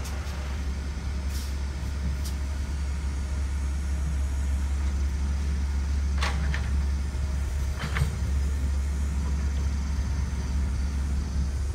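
Heavy diesel engine running steadily with a low rumble, broken by two short sharp knocks about six and eight seconds in.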